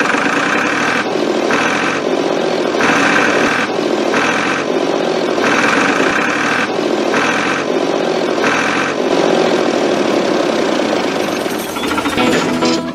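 An engine running steadily, with a harsher, higher layer that cuts in and out in pulses about every second.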